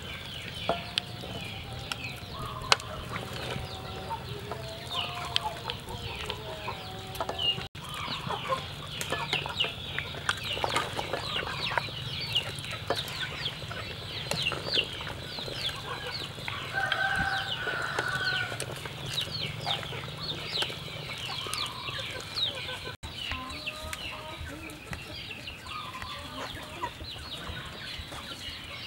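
Chickens clucking on and off, with many short high cheeps throughout.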